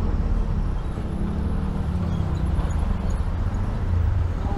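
Tuk-tuk (auto-rickshaw) engine running as it drives through traffic, heard from inside the open cabin: a steady low rumble.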